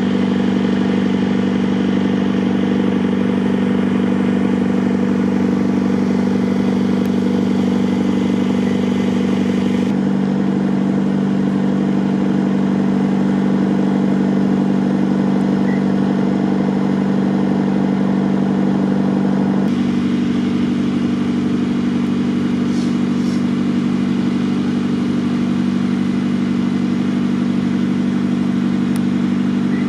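An engine running steadily at an unchanging pitch, a continuous drone.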